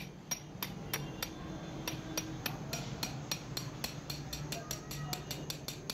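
Light, sharp metal-on-metal taps, several a second and irregular, as a steel drift is knocked against a tapered roller bearing to drive it off the differential carrier.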